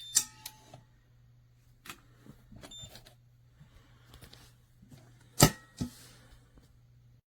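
Biometric pistol safe being operated: short electronic beeps and light clicks from its keypad and latch, then a loud metallic clunk about five seconds in and a smaller click just after, over a steady low hum.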